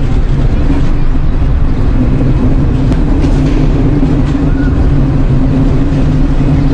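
A loud, steady low drone with a couple of held pitches over a dense rumble, the kind of sound passed around as the 'strange sounds' heard in the sky.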